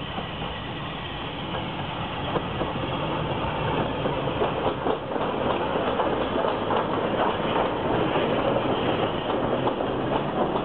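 Bulleid West Country class steam locomotive 34007 Wadebridge approaching and passing, growing louder, followed by its coaches rolling by with wheels clicking over the rail joints.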